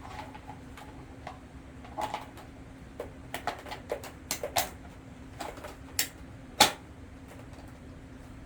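Irregular clicks and knocks of electric fan parts being handled, over a steady low hum; the loudest knock comes about two-thirds of the way in.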